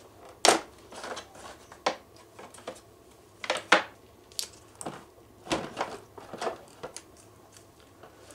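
Irregular sharp plastic clicks and knocks as the battery-compartment cover of an APC Back-UPS Pro 1500 battery backup unit is taken off and the battery inside is handled.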